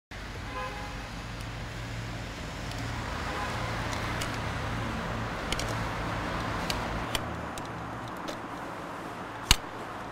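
Road traffic noise, swelling and easing off as a vehicle passes, with a low engine hum that drops away about seven seconds in. Scattered light clicks run through it, and one sharp click comes near the end.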